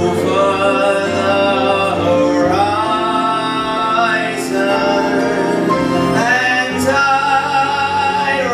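A male vocalist singing a musical-theatre song over instrumental accompaniment, holding long notes and rising in pitch about two and a half seconds in and again near six and a half seconds.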